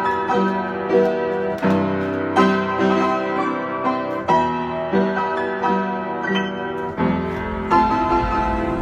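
Solo piano background music, notes struck in a steady flowing pattern.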